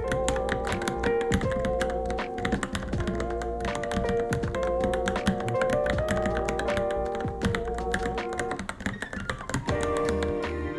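Fast typing on a Varmilo Minilo mechanical keyboard: a dense, uneven run of key clacks. Background music with a held melody plays along, dropping out for about a second near the end while the typing continues.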